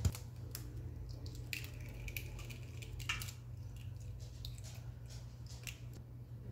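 Eggs being cracked and separated by hand over a stainless steel bowl: a few faint taps and cracks of eggshell, and soft wet sounds of egg white slipping into the bowl.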